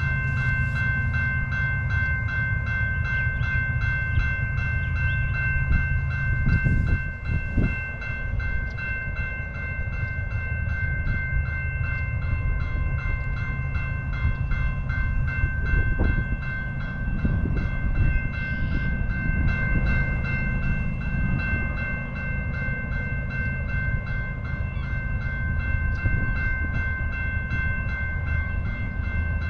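Level-crossing warning bell dinging at a quick, even rate, over a steady low rumble of a train.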